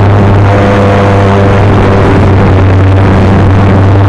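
A model airplane's motor and propeller heard from the onboard camera in flight: a loud, steady drone with a few held tones riding on it.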